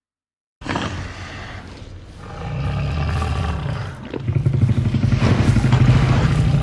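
Synthetic Godzilla monster roar, a mix of the 2014 Godzilla roar and the Jurassic Park T. rex roar. It starts suddenly about half a second in and builds into two long, low, rattling roars, the second louder.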